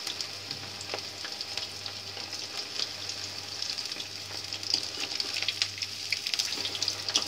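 Battered cauliflower florets deep-frying in hot oil in an iron kadhai: a steady sizzle with many small crackles, and occasional light clicks as the pieces are turned with a spoon.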